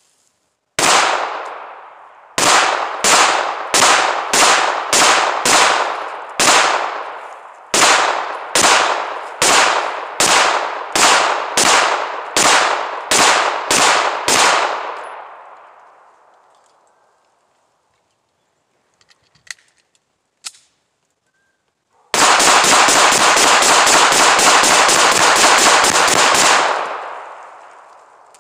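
Gunshots: a single shot, then a steady string of about twenty shots at roughly two a second, each with a ringing tail. After a pause of several seconds comes one very rapid burst of shots lasting about four seconds.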